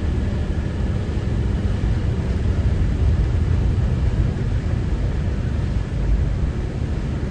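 Vehicle driving on a rough dirt track: a steady low road rumble with no changes.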